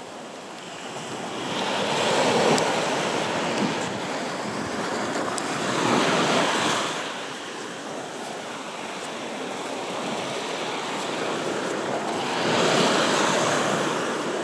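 Sea waves breaking and washing in on the shore, the surf swelling three times: about two seconds in, around six seconds, and again near the end.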